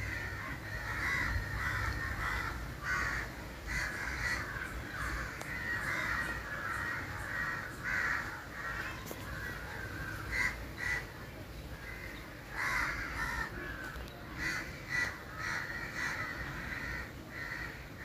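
Crows cawing again and again, short harsh calls every second or so, over the low steady rumble of a moving auto-rickshaw.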